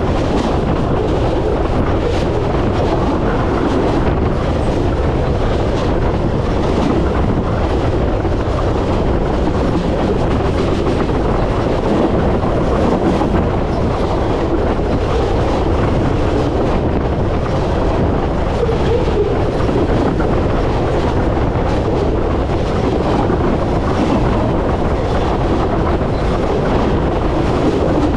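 Freight train cars rolling directly overhead, heard from between the rails: a steady, loud rumble of steel wheels and undercarriage on the track, with scattered clicks of the wheels.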